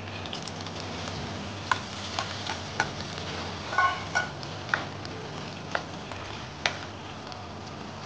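Squid pieces frying in hot oil in a non-stick pan with garlic and green chillies: a steady sizzle, stirred with a spatula, with sharp clicks every second or so.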